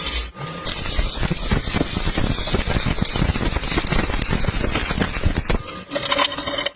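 Electric arc welding crackling steadily as a weld bead is laid into a V-groove butt joint, breaking off about a second before the end.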